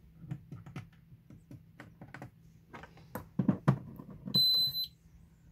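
Hand clicks and knocks on the Allpowers Monster X portable power station's front panel buttons, then a single high electronic beep of about half a second near the end as the unit switches on.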